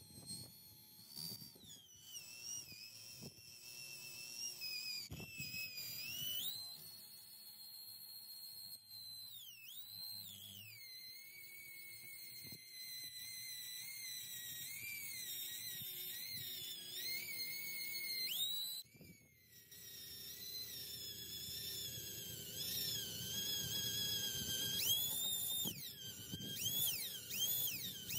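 Drill spinning a 3M adhesive eraser wheel against the truck's paint to rub off leftover molding adhesive: a high whine that rises and falls in pitch with the drill's speed and pressure, stopping briefly about two-thirds of the way through.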